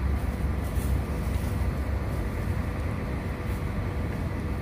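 Wind rumbling on the microphone, a steady low rumble with a faint steady hum underneath.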